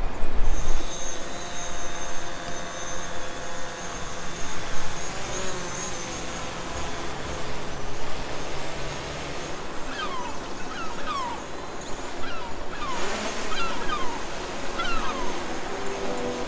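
Gulls calling, a series of short gliding cries from about ten seconds in, over a steady rushing background noise.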